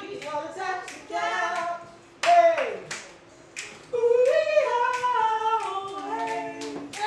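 People singing together, with scattered hand claps as they dance along.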